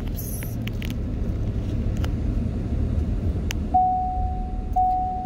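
Low rumble of a car driving slowly, heard from inside the cabin, with a few faint ticks. From nearly four seconds in, a vehicle warning chime starts, one ding about every second.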